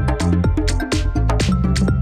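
Upbeat electronic dance music with a steady drum beat and bass line.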